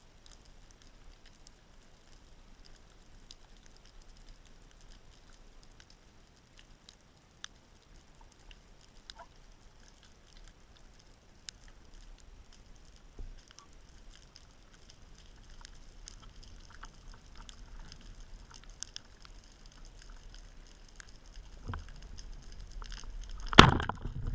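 Underwater ambience: a faint hiss with scattered small clicks and crackles, the hiss slowly swelling in the second half. About a second before the end, a loud sudden thump followed by a rushing noise.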